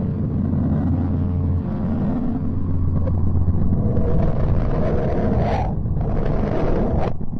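A low, droning rumble from a space 'sound of a planet' recording: a steady deep hum with layered tones gives way to a noisier, whooshing rumble about halfway through, with a brief drop just before the end.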